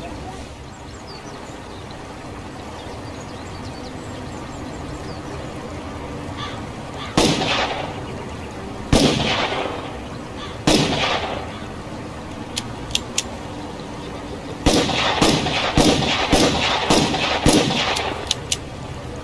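Revolver gunshots. Three single shots about two seconds apart, each with a ringing tail, then a few light clicks, then a quick string of shots fired one after another.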